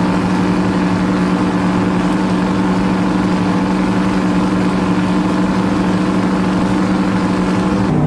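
Boat motor running steadily at an even speed, a constant drone that holds one pitch throughout.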